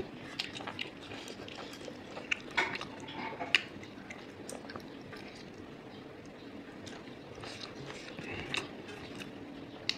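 Close-up chewing of a mouthful of rice eaten by hand, with scattered small clicks.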